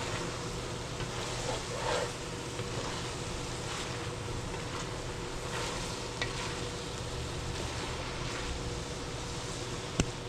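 Ground chicken and chopped tomatoes sizzling steadily in oil in a pot, with a few light taps of a stirring utensil and a sharp click near the end.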